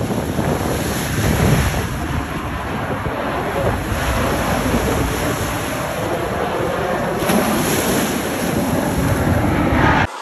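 Wind buffeting the microphone over a steady rushing roar from the Blue Angels' F/A-18 Super Hornet jets flying in formation overhead. The sound cuts off suddenly near the end.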